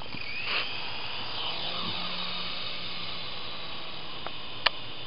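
Small electric RC helicopter's motor and rotors whining high, rising in pitch as it lifts off about half a second in, then wavering as it climbs and moves about. A single sharp click near the end.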